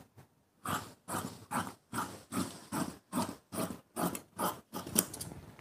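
Fabric shears cutting through cloth on a cutting table: a steady run of about eleven crunching snips, roughly two and a half a second, following the seam-allowance line.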